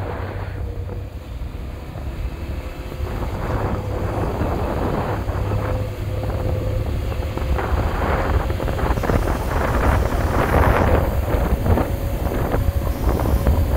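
Low rumble of a moving vehicle on the road, with wind buffeting the microphone, growing louder in the second half.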